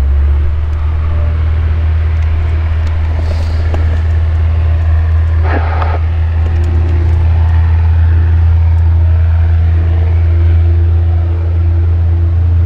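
An engine running steadily with a loud, low, even drone.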